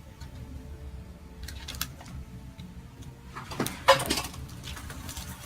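Chiropractic neck adjustment: a few faint clicks, then a short rustle with one sharp crack of the neck joint about four seconds in.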